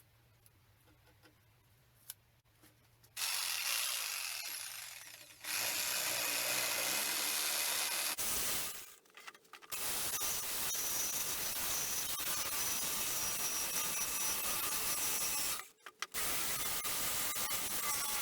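A handheld power tool running in long bursts with short stops, a loud grinding hiss with a faint steady whine above it, typical of grinding or wire-brushing an old axe head during restoration.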